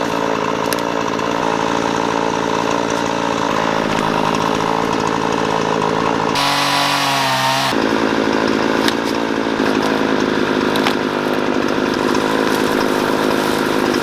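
Chainsaw running at high revs, cutting through brush and small trees. The engine note changes briefly for about a second around the middle, then carries on steadily.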